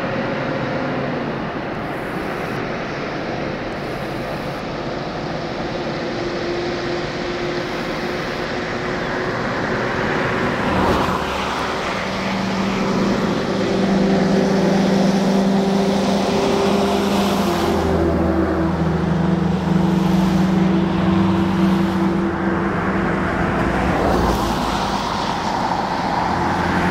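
Boeing 767-300ER's jet engines through touchdown and rollout: a steady roar that grows louder about halfway through, with low steady droning tones coming in.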